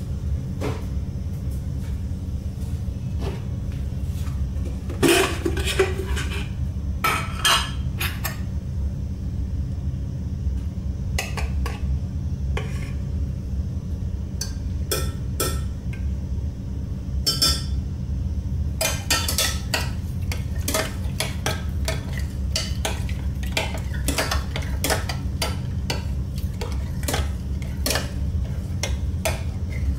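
A metal spoon clinking and scraping against a glass jug and bowl in scattered taps, with a quicker run of clinks from about two-thirds of the way through as the milk is stirred. A steady low hum runs underneath.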